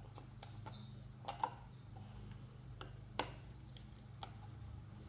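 Scattered light clicks and taps of small objects being handled, with two sharper clicks about a second and a half and three seconds in, over a low steady hum. The new oil filter and oil are being readied for priming.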